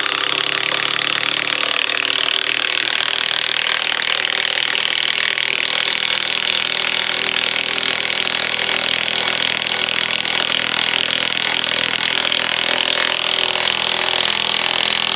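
Craftsman V20 high-torque cordless impact wrench hammering steadily without a break as it drives an 8-inch lag screw into wood.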